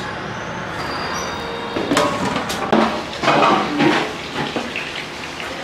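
Kitchen clatter: irregular knocks and scrapes of metal cooking pots and utensils over a steady background hiss, loudest between about two and four seconds in.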